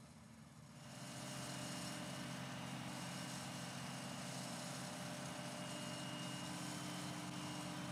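Vermeer XR2 vacuum excavator running at dig: a steady machine noise with a constant high whine as its dig tube vacuums soil from a pothole. It gets louder about a second in.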